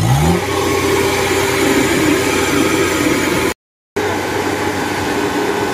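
Diesel engine of a Kubota DC-70 Plus rice combine harvester revving up at the start, then running steadily. The sound drops out completely for a moment a little past halfway, then the steady running resumes.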